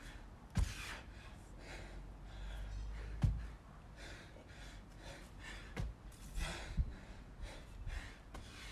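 A man's heavy, gasping breaths, about one a second, as he works through dumbbell snatches, hard out of breath. Dull thumps land about half a second in and again just after three seconds in, the loudest sounds, with fainter knocks near the end.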